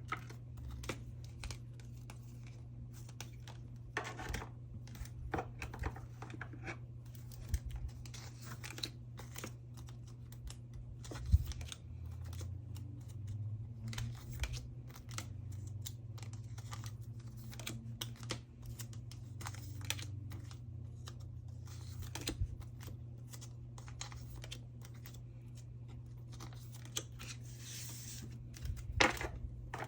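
Plastic photocard sleeves crinkling and rustling as photocards are slid out of them, with many small clicks and taps of handling and one sharper click about eleven seconds in.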